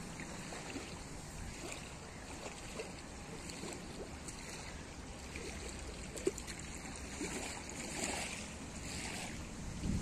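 Gusty wind blowing over the microphone, with a low buffeting rumble and tall lakeside reeds rustling; a stronger gust brings louder hissing rustle near the end. A single short knock about six seconds in.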